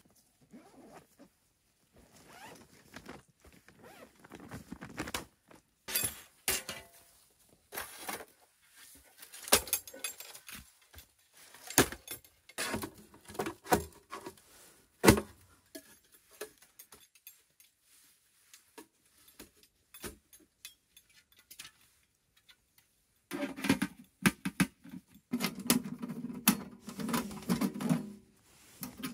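Thin titanium panels of a Pomoly folding wood stove clinking and clacking as the stove is unfolded and put together by hand, with a run of sharp metallic clicks and knocks. Near the end comes a denser stretch of metal rattling and scraping.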